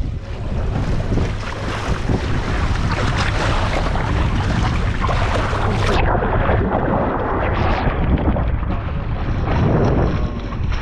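Steady wind noise buffeting the microphone on a fishing boat at sea, with the rush of wind and water; about six seconds in the sound abruptly turns duller.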